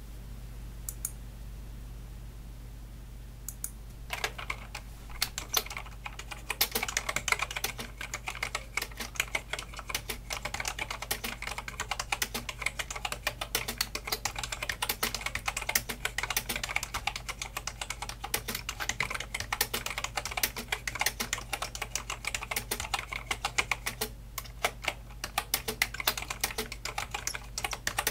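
Typing at about 60 words a minute on a BTC 5369 keyboard, whose keys are linear springs over foam-and-foil switches. A few single key presses come first, then a dense, unbroken run of key clacks starts about four seconds in and barely pauses near the end.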